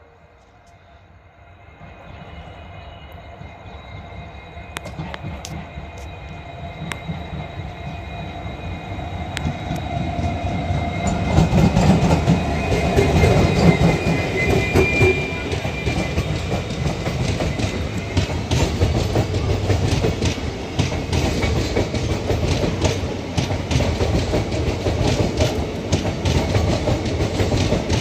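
An Indian Railways passenger train hauled by an EMD WDP-4D diesel locomotive approaches and passes, growing louder over about ten seconds. Its wheels then clatter and click over crossover track points in a dense run of knocks over a heavy rumble, with a thin high squeal in the middle.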